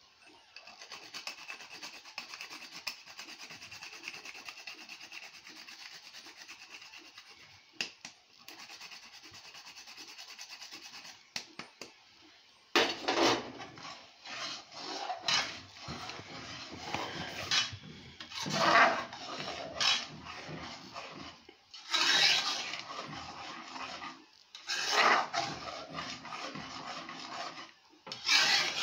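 A metal spoon stirring thick porridge in an aluminium pot, scraping the bottom and sides. It is a softer, steady rasping at first, then from about halfway it turns into louder, irregular scraping strokes every second or two.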